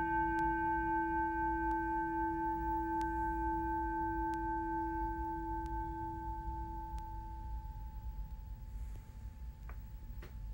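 Zildjian FX Zil-Bel 9.5-inch bell cymbal ringing out after a strike: a few clear, bell-like tones slowly fading until they die away about eight seconds in. Faint ticks come at an even pace, about one every second and a third, and a couple of short soft knocks come near the end.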